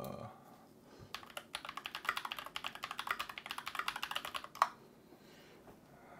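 Fast typing on a mechanical computer keyboard: a quick run of key clicks starting about a second in and lasting some three and a half seconds, ending with one harder keystroke.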